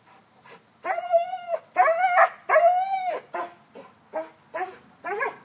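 Young Cane Corso whining and crying: three drawn-out cries, each rising and falling, about a second in, then five shorter yips, a baby-like whimpering.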